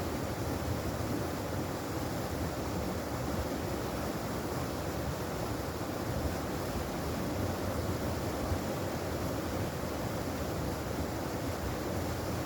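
Mountain valley stream flowing, a steady unbroken rush of water.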